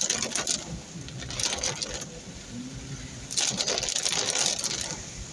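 Car driving through rain-soaked streets with surges of crackling hiss as tyre spray and rain hit the car, three times, the last the longest, over a low steady rumble.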